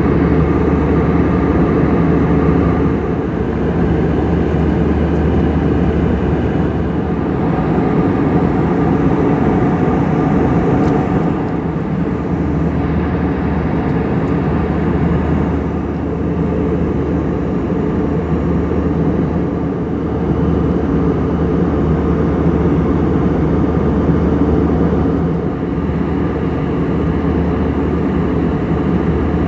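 Airbus A320-200 cabin in flight: the steady, deep drone of the engines and airflow, with a few slight dips in level.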